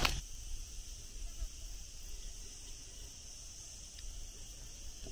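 Steady, high-pitched chorus of insects, a continuous shrill drone. A footstep on the dirt path sounds right at the start.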